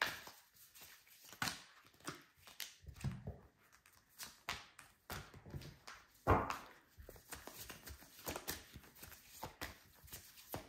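A deck of tarot cards being shuffled by hand: a run of soft, irregular flicks and taps as the cards slide over one another, with a louder thump about six seconds in.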